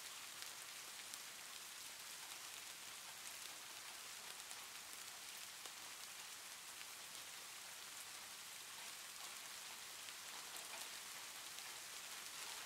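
Faint, steady hiss with light scattered ticks throughout, like rain falling on a surface.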